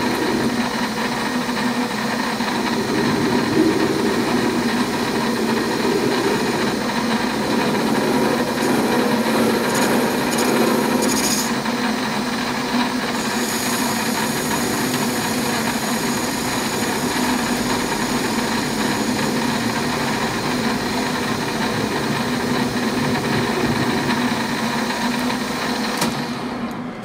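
Metal lathe running with its turning tool taking a facing cut across the end of a round bar held in the three-jaw chuck: a steady machine hum under the scrape of the cut. The sound eases down near the end.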